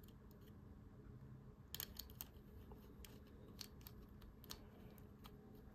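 Faint light clicks and rustling of jumper wires being handled and pushed into an Arduino's header pins, a small cluster about two seconds in and a few single ticks later, over near silence.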